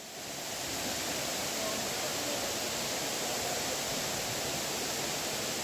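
Waterfall water rushing steadily, a continuous hiss that swells up within the first half second and then holds level.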